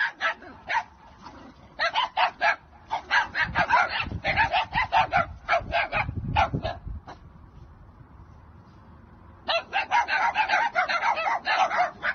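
Dogs barking in quick, overlapping volleys, breaking off for about two seconds before starting again.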